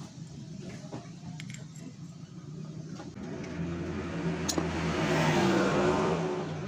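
A motor vehicle engine passing by, swelling in loudness to a peak about five seconds in and then fading. A few light clicks, like tools or metal parts being handled, sound before it.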